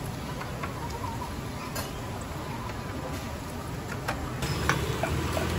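Hot oil sizzling and crackling steadily as oyster fritters deep-fry in a large wok, with a few sharp clicks of metal frying utensils against the pan.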